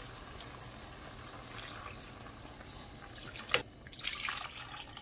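Water pouring in a steady stream into a metal pot of stir-fried wet seaweed, filling it for soup broth. A short knock about three and a half seconds in.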